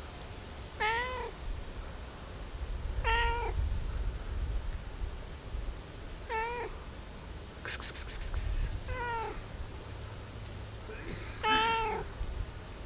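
Tabby cat meowing five times, short calls spaced a few seconds apart. A brief run of clicks comes just before the fourth meow.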